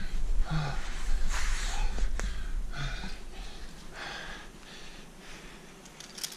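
A climber breathing hard in slow, heavy breaths, about one every second or so, while crawling along a narrow granite ledge; a single sharp click about two seconds in, and a low rumble underneath that dies away near the end.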